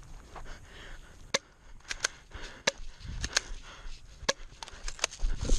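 Airsoft guns firing: about ten sharp snapping shots at an uneven pace, some in quick pairs, beginning about a second in.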